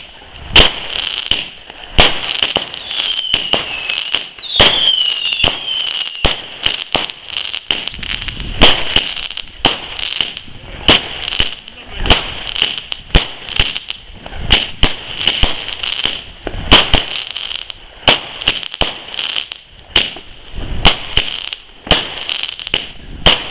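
Fireworks launching and bursting in a steady run of sharp bangs, about one a second, with crackling in between. A brief falling whistle comes about four to five seconds in.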